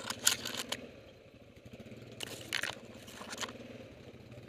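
ATV engine running steadily at low trail speed while branches and leaves scrape and crunch against the quad and camera in several short bursts. The loudest brushing comes at the start, with more about two and three seconds in.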